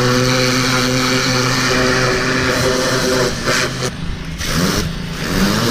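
Kärcher 2400 PSI gas pressure washer running, its engine droning steadily under the loud hiss of the high-pressure spray hitting the dirt bike. The spray cuts out briefly a couple of times past the middle, and the engine pitch shifts and climbs back as it resumes.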